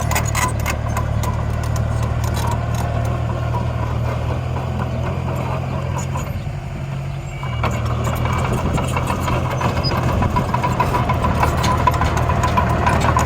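Heavy-machine diesel engine running steadily, dipping briefly about halfway through and then picking up again, with scattered clicks and knocks over it.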